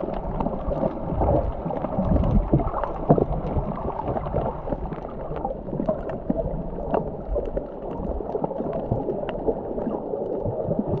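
Underwater noise heard through a GoPro in its waterproof housing while snorkelling: a steady, muffled rush of water with many small clicks and crackles scattered through it.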